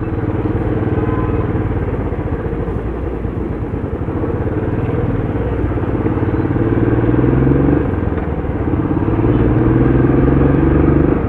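Motorcycle engine running under way with road noise. Its pitch climbs slowly, drops abruptly about two-thirds of the way through, then climbs again as the bike gathers speed.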